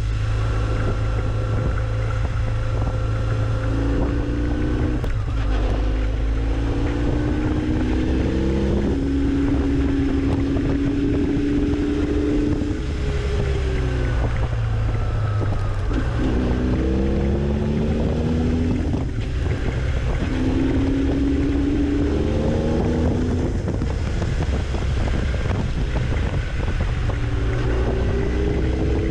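Vehicle engine pulling through the gears: its pitch climbs, then drops at each shift, about half a dozen times. Heavy wind noise on the microphone runs under it.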